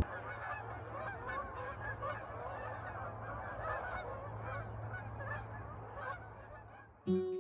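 A flock of Canada geese honking, many calls overlapping, thinning out near the end. Acoustic guitar music starts just before the end.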